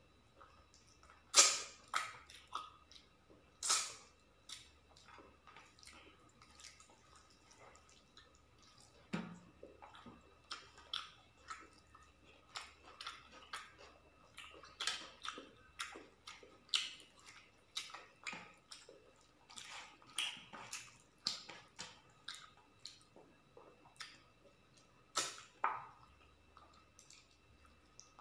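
Close-up wet eating sounds of a person eating rice and chicken curry by hand: irregular chewing clicks and lip smacks, the loudest few near the start.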